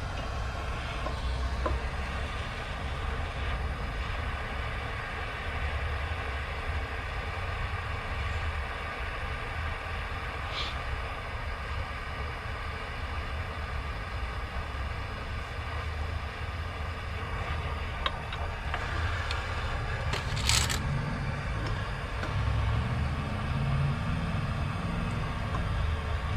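Hand-held gas torch flame running steadily with a low rumbling roar while heating a corroded, seized track-tensioner cover bolt to break it loose. A brief sharp hiss comes about three-quarters of the way through.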